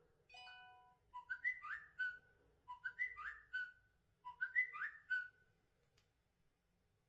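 A Samsung Galaxy S4 stock tone played through the phone's speaker. A short steady electronic note comes first. Then a chirpy, whistle-like phrase of quick rising and falling notes plays three times in a row.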